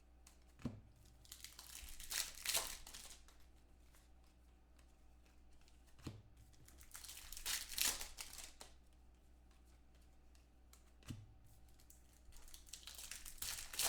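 Foil trading-card pack wrappers being torn open and crinkled, three times over, each preceded by a soft thump.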